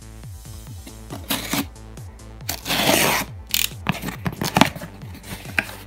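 Utility knife blade slicing through packing tape and cardboard along a box seam: scratchy rips, the longest and loudest about halfway through, with shorter ones before and after. Background music with a repeating bass beat plays under it.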